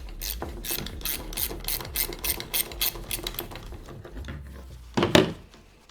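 Hand socket ratchet clicking quickly and evenly, about five clicks a second, as a bolt is undone; the clicking dies away about three and a half seconds in, and a single louder clunk follows near the end.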